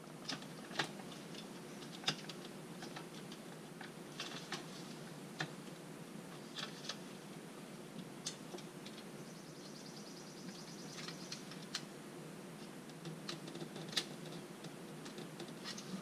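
Light, scattered plastic clicks and taps as small trim clips and parts are worked loose around the inside door handle of a 1996 C4 Corvette's door panel.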